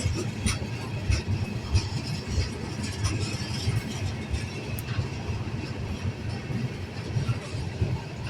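Freight train cars rolling past with a steady low rumble, their wheels clicking over the rails about every half second.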